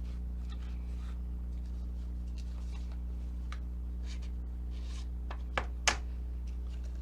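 Handling sounds of an aluminium protractor being taken out of its cardboard package: light rustling and scraping, then two sharp clicks close together about six seconds in, over a steady low hum.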